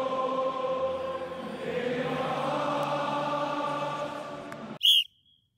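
Many voices singing together in choir-like sustained notes. About five seconds in they cut off, a short high-pitched sound follows, and then the sound drops out.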